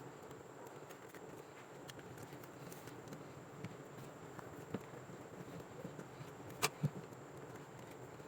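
Faint steady background hiss and hum with a few light clicks, the loudest two in quick succession about two-thirds of the way through.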